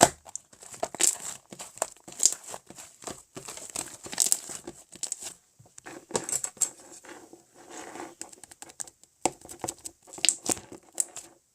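Slime being squeezed and stretched by hand, making irregular crackles, pops and crinkly tearing sounds. It stops just before the end.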